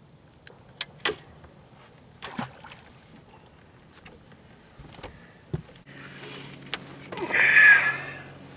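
Light clicks and knocks of a landed bass and fishing tackle being handled on a bass boat's deck as the hook is taken out. A steady low hum starts about six seconds in, and about a second later comes a brief, loud scraping rustle.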